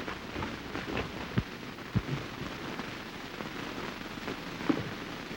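Steady hiss and crackle of a worn early-1930s optical film soundtrack, with a few sharp pops and clicks, two of them close together about a second and a half and two seconds in.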